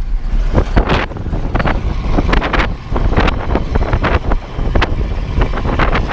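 Wind buffeting a microphone mounted on the outside of a moving pickup, in irregular gusts over a steady low rumble of road and tyre noise.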